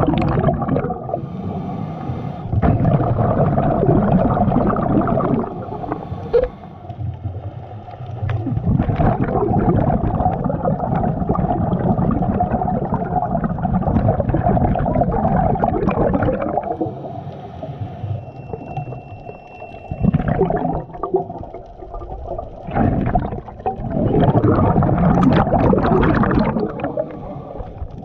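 Scuba diver breathing through a regulator underwater, heard close up through a head-mounted camera's housing. Exhaled bubbles rush out in several long surges, with quieter pauses between breaths.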